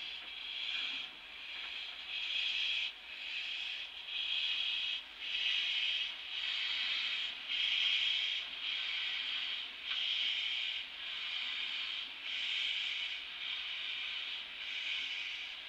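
Steam locomotive 315, a narrow-gauge 2-8-0, giving off regular hissing puffs of steam about once a second, each lasting most of a second with a short break between.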